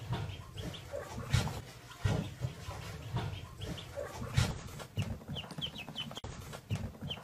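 Ducklings peeping: short, high, falling chirps in quick runs of three or four, with dull low thumps between them.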